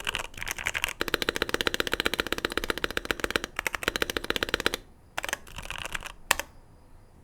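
Fast typing on a Keychron Q1 mechanical keyboard modded with tape, PE foam in the case and the force-break mod: a quick run of keystroke clacks lasting a few seconds, then a few scattered keystrokes.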